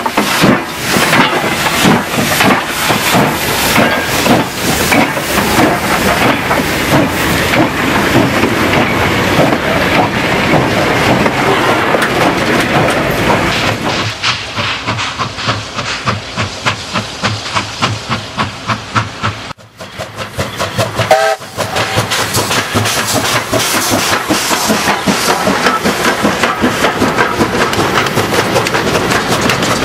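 JS-class (Jianshe) steam locomotive working a train: fast, dense exhaust chuffs and clanking of the rods and driving wheels close up, then an evenly spaced beat of chuffs from farther off. After an abrupt break there is a short whistle blast, then the locomotive and its wagons pass close, wheels clattering over the rail joints.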